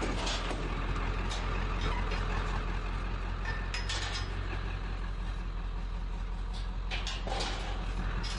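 A truck being driven, a steady low engine hum and road noise, with a few short rattles or clicks, about four seconds in and again about seven seconds in.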